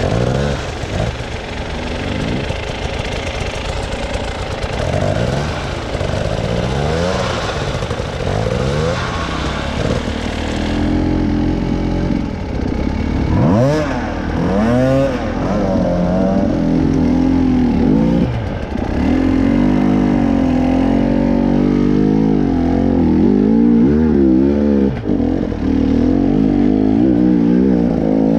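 An off-road vehicle's engine revving up and down over and over. It gets louder and runs at higher revs from about eleven seconds in.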